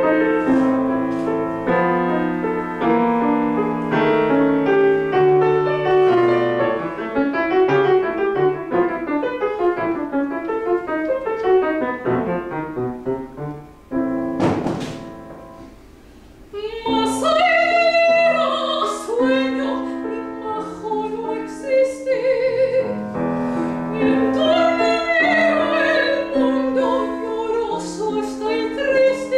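Grand piano playing a classical accompaniment alone, which thins out and goes quiet about halfway, with a short click. Then a woman's operatic voice comes in with wide vibrato over the piano.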